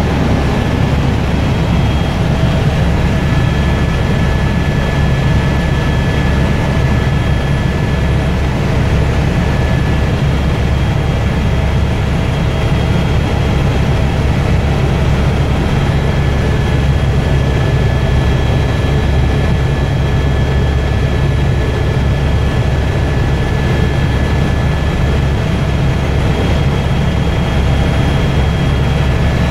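Helicopter in flight heard from inside the cabin: a steady loud drone of engine and rotors, with thin steady whining tones over it.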